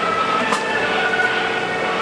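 Drag-racing engine running in the pits: a steady, loud mechanical drone with whining overtones, and a single sharp click about half a second in.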